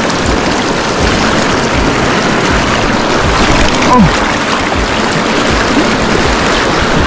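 River current rushing steadily, a close and loud water noise, with low wind buffeting on the microphone. A short sound falling in pitch cuts through about four seconds in.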